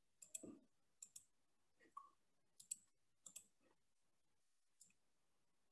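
Faint computer mouse clicks, a dozen or so, mostly in quick press-and-release pairs, made while writing and erasing on a digital whiteboard; the last one comes a second after the others.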